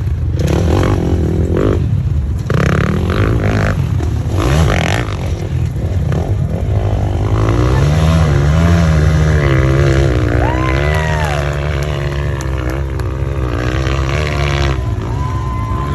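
Hillclimb racing motorcycle engine under hard throttle, revving in uneven bursts at first, then holding a strong, wavering pitch through the second half.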